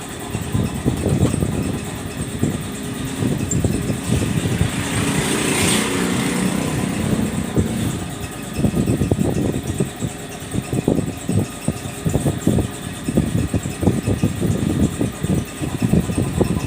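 Lathe fitted with a milling attachment running and cutting metal, with a continuous rough, rattling chatter; the rattle eases for a few seconds near the middle, with a brief hiss, then comes back.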